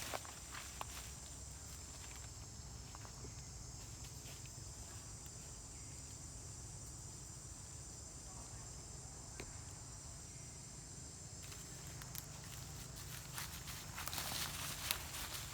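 Outdoor ambience: a steady high insect drone with scattered light clicks and rustles, which get busier near the end.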